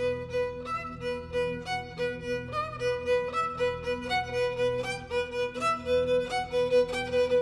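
Background music: an instrumental passage, a melody of changing notes over a held tone and a steady beat.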